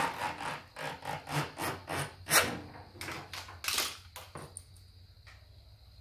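Rough scraping and rubbing strokes, several a second, with two louder ones about halfway through. They die away after about four and a half seconds.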